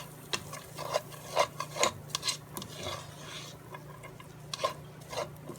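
A utensil stirring cooked rice into fried vegetables in a pot, scraping and knocking against the pot in irregular strokes. There are several strokes in the first three seconds and a couple more near the end.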